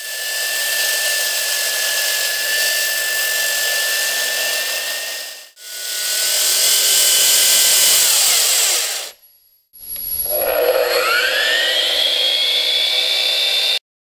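AGP C14 handheld 14-inch electric concrete saw with a diamond blade cutting concrete wet: a steady high whine from the motor and blade over gritty cutting noise, heard in three takes with brief gaps between them. In the last take the whine rises in pitch as the motor spins up, then the sound cuts off suddenly.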